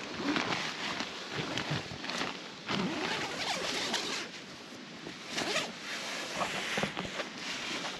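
Tent door zipper being pulled open in a series of short, scraping pulls.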